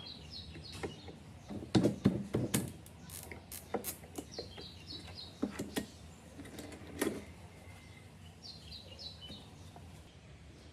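Hand chisel scraping and tapping at an aluminium plate on a wooden speaker cabinet: a string of sharp scrapes and knocks, loudest about two seconds in, with the plate then handled. Small birds chirp in three short quick runs in the background.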